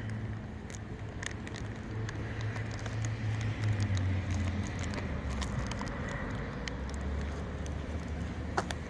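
Low, steady engine hum of a vehicle running nearby, dropping lower about halfway through, with scattered light clicks and rustles over it.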